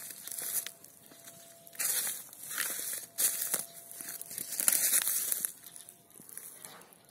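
Dry leaves and twigs rustling and crunching underfoot in irregular bursts, loudest around the middle.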